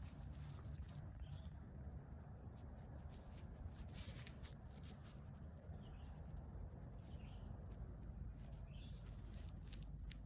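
A bird giving short high chirps every second or two over a faint low rumble, with scattered small clicks.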